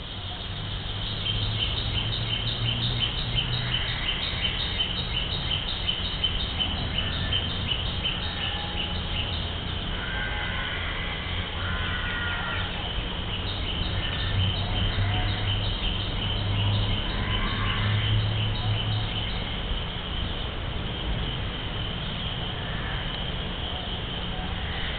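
Outdoor wildlife chirping: a fast, even run of high chirps, about four a second, with a few short bird calls in between, over a steady low rumble.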